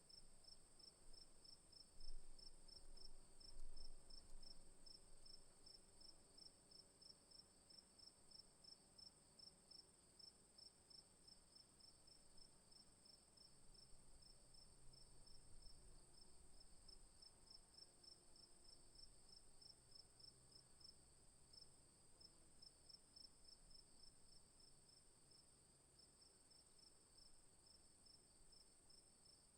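Crickets chirping faintly: a rhythmic train of high chirps over a steady, even higher trill. Two soft low bumps come about two and four seconds in.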